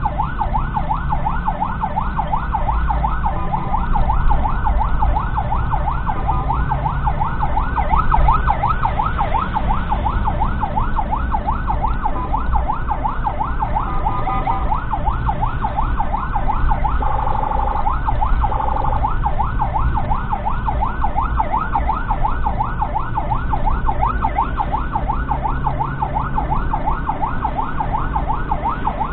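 Ambulance siren on a rapid yelp, its pitch sweeping up and down several times a second without a break, heard from inside the ambulance's cab over its engine and road rumble.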